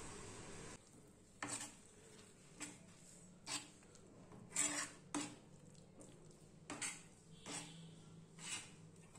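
A metal spatula scrapes and stirs thick vegetable mash on an iron tawa (flat griddle), about eight short scrapes roughly a second apart. A steady hiss stops just under a second in.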